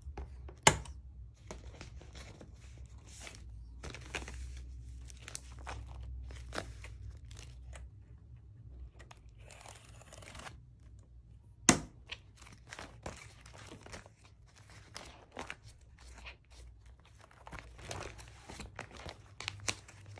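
Clear plastic binder sleeve pages rustling and crinkling as photos are slid into the pockets and pages are handled, over a low hum. Two sharp clicks stand out, one just under a second in and one about halfway through.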